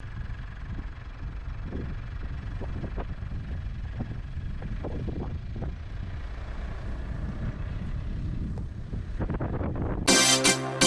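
A vehicle running, a steady low rumble with wind on the microphone and scattered small knocks. Loud electric-guitar rock music cuts in suddenly near the end.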